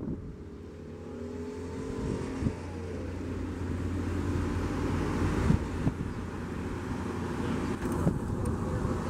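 Cessna 208 Caravan's single Pratt & Whitney PT6A turboprop engine and propeller running at high power as the plane rolls down the runway, the sound growing louder over the first few seconds and then holding steady.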